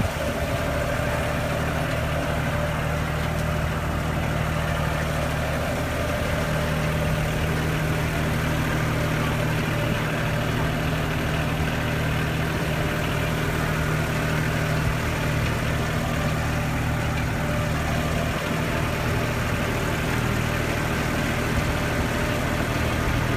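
Farm tractor engine running steadily as the tractor drives along, heard from on board close to the engine.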